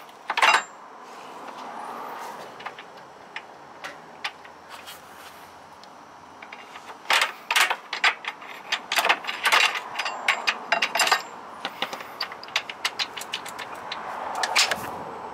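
A wrench working the lower control arm pivot bolt on a Tesla Model S, giving sharp metallic clicks and clinks. The clicks come thickest in a busy run in the middle and thin to lighter ticks near the end as the bolt is worked loose.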